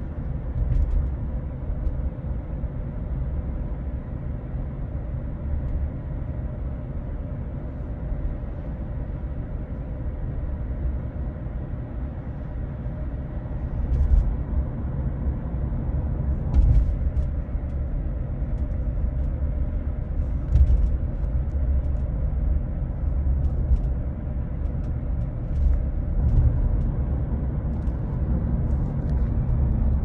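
Cabin noise of a 2018 Tesla Model 3 on the move: a steady low road and tyre rumble with a faint, steady whining tone over it, and a few brief thumps from the road surface.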